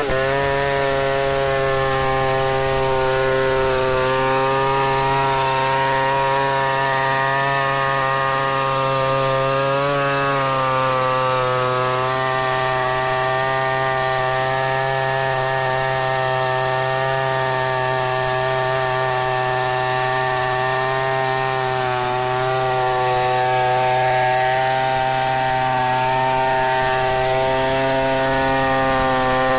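Stihl 070 two-stroke chainsaw running at full throttle while ripping an acacia mangium log lengthwise. The engine note holds steady under load, with only a slight wobble in pitch about ten seconds in.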